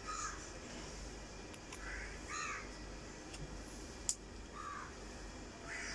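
Faint, short bird calls, several of them spread a second or two apart, with one sharp click a little past four seconds in.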